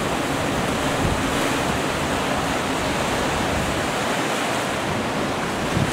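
Sea surf washing steadily in around rocks and over sand, a continuous rush of breaking water.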